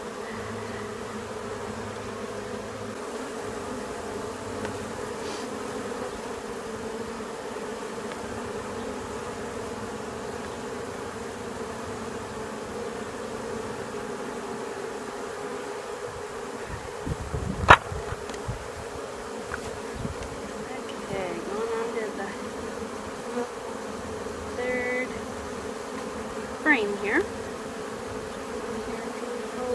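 Honeybees from an open nucleus colony buzzing steadily, a dense, even drone. A single sharp knock sounds a little past the middle, and a few brief louder buzzes come near the end.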